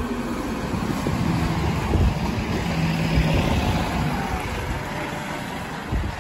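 Diesel engine of a 2012 NABI 31-LFW transit bus, a Cummins ISL9, running as the bus drives past and away. The engine rumble grows louder over the first few seconds, then slowly fades.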